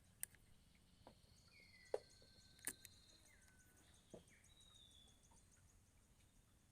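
Near-quiet outdoor ambience: faint whistled bird calls and a faint high insect ticking, with a few sharp clicks scattered through.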